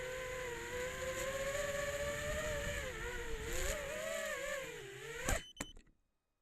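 FPV racing quadcopter's brushless motors and propellers whining steadily, the pitch wavering up and down with the throttle. The whine cuts off suddenly with a sharp click about five seconds in, followed by a few faint ticks.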